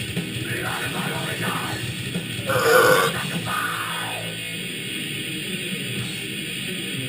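Heavy rock music with electric guitar, with a brief louder pitched burst about two and a half seconds in.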